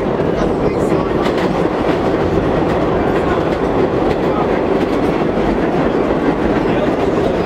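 A vintage New York City subway car running along the track, heard from inside the car: a steady loud rumble with scattered wheel clicks.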